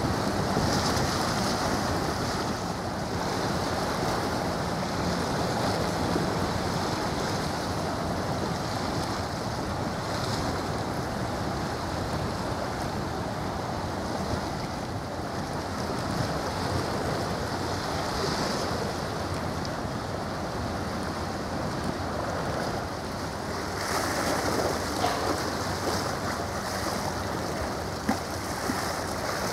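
Outdoor wind noise on the microphone over the steady wash of choppy sea water, a little stronger for a moment near the end.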